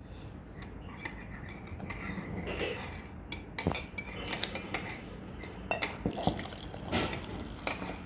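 Ceramic mugs clinking and knocking on a wooden table as they are handled: scattered small, sharp knocks and clinks, more frequent in the second half.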